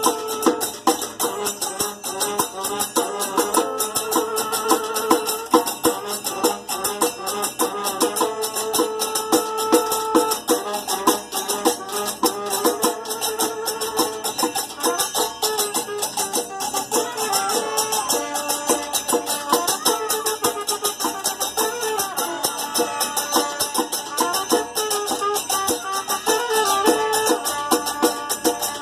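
Percussion band playing a cumbia groove: drums and shakers in a dense, steady rhythm, with a melody of held notes above it.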